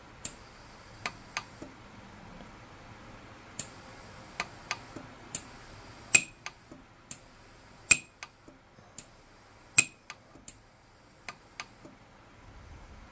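Orion 150s micro pulse-arc welder firing about twenty short weld pulses, each a sharp snap, at uneven intervals, fusing platinum fill wire onto a platinum ring. Some snaps are followed by a faint high whine from the welder.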